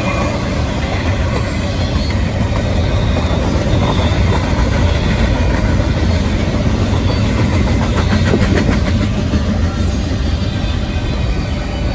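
Diesel locomotive engine running with a steady low rumble, with a quick run of metallic clicks about eight seconds in.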